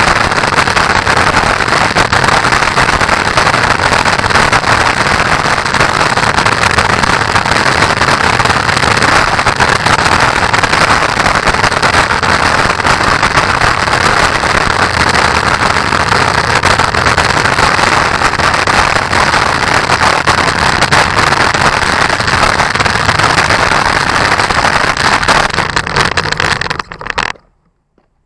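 Steady, loud rumble and hiss of wheels rolling over rough, gravelly pavement, shaken through a camera mounted just above the road surface. It cuts off abruptly about a second before the end.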